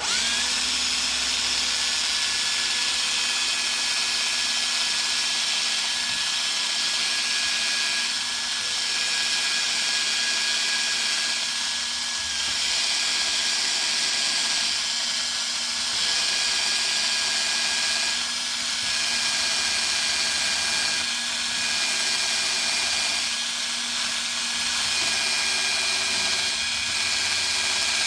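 Electric drill running steadily under load, drilling into the ignition lock cylinder of a switch held in a vise. It starts abruptly and keeps a steady whine, dipping slightly in loudness now and then.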